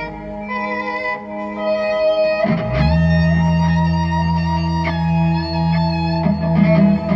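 Guitar music with long held notes; a deep bass note comes in about two and a half seconds in and holds, with a few strums over it near the end.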